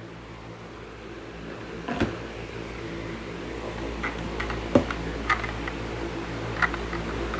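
Zojirushi electric kettle heating water: a steady hum that grows steadily louder, with scattered sharp ticks and clicks.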